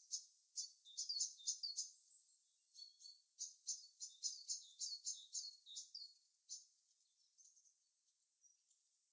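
Small birds chirping: quick runs of high, thin notes, about four or five a second, in two bursts during the first six seconds, then a few scattered fainter notes.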